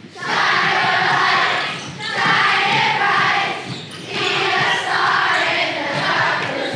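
A large group of children shouting together in loud bursts about every two seconds, with many feet thudding on a wooden floor as they jump.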